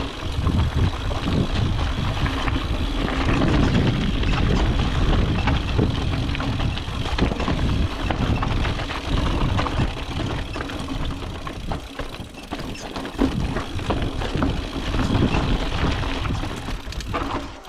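Mountain bike riding fast down a rough trail: tyres rolling over the ground and the bike rattling and clattering over bumps, with wind rumbling on the microphone. It dies down just before the end.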